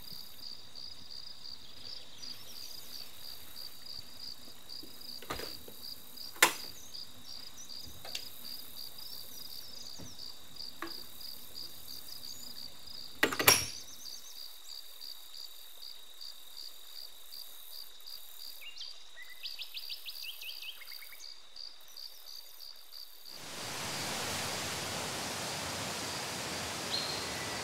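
Crickets and other night insects chirping in a steady, high-pitched pulsing chorus, broken by a couple of sharp clicks. About 23 seconds in the chorus stops and a steady, even hiss of outdoor noise takes over.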